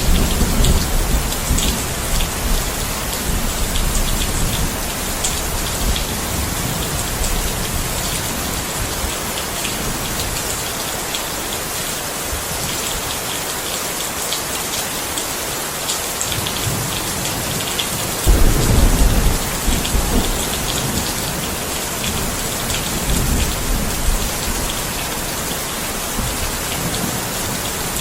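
Steady heavy rain pattering on surfaces, with low rolls of thunder: one rumble at the start and a louder one about two-thirds of the way through.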